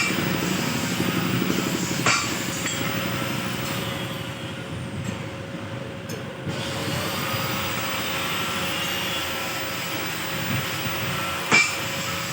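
Hammer knocks on metal: a few separate sharp strikes, the loudest near the end, over steady workshop noise with a faint constant hum.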